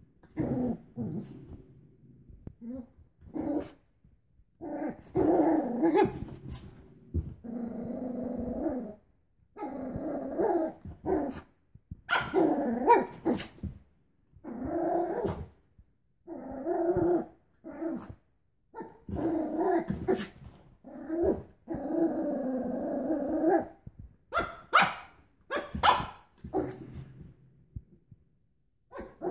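Cavalier King Charles Spaniel puppy growling again and again in stretches of a second or two, with short sharp barks in between.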